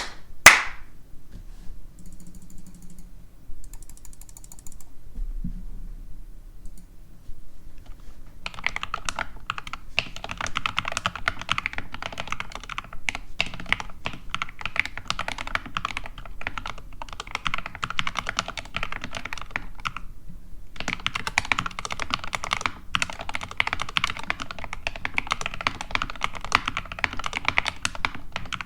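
SK61 mechanical keyboard with lubed Gateron Red linear switches and Everglide stabilizers being typed on in a fast, continuous stream of keystrokes, starting about eight seconds in, with a brief pause around twenty seconds in. A single sharp knock right at the start is the loudest sound.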